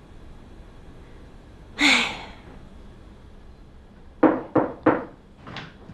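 Several sharp door knocks and thumps, three in quick succession about four seconds in and one more shortly after, preceded by a single short breath about two seconds in.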